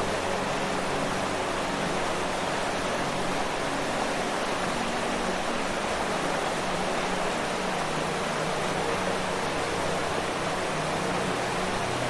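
Waterfall, a steady, even rush of falling water with no breaks. Faint low humming tones come and go beneath it.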